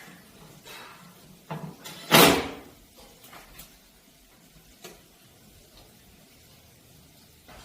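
A few light knocks, then one loud sliding scrape about two seconds in, like something being slid or pushed shut.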